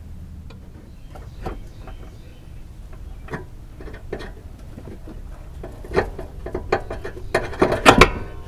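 Metal clinks and knocks of a pry bar levering down on a vehicle's engine cradle while an engine mount is worked loose. The knocks are scattered at first, then come faster and louder in the last two seconds.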